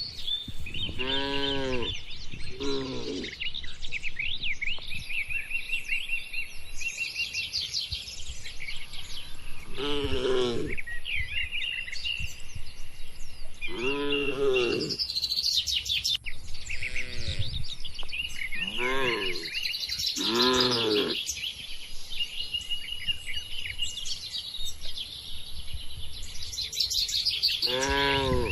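Cattle mooing in short calls, about eight of them spread through the stretch, each about a second long and rising then falling in pitch, over constant chirping of small birds.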